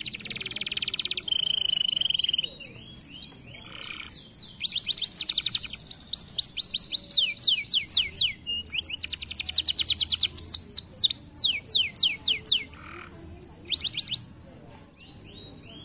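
Domestic canary singing: long rolls of fast, repeated downward-sweeping notes. A steady trill is held for about a second near the start, and there are short pauses around three seconds in and near the end.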